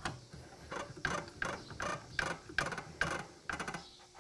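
Router table lift being cranked to raise the router and its lock miter bit, with a ratcheting click about three times a second.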